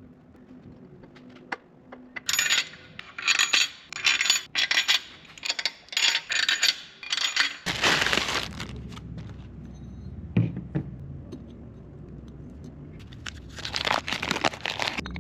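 Small metal engine parts clinking and rattling as they are handled, about a dozen quick clatters in a row, then a longer metallic scrape. A low steady rumble comes in about halfway, with a single knock, and there is another rattling scrape near the end.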